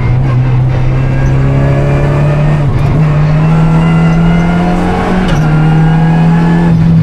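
Renault Clio Rally5's turbocharged 1.3-litre four-cylinder engine, heard from inside the car, pulling hard on a rally stage. The revs hold steady, climb about a third of the way in, dip briefly past two-thirds, then hold high.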